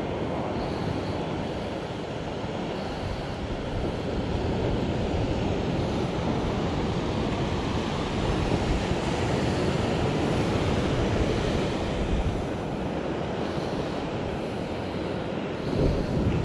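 Ocean surf breaking on the beach, with wind buffeting the microphone and a stronger gust near the end.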